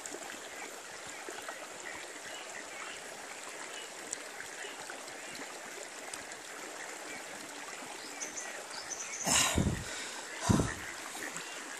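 Shallow rocky river flowing and trickling steadily, with two short loud bumps near the end.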